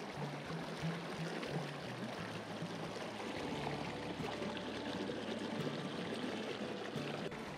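Flowing river water, a steady rush of noise.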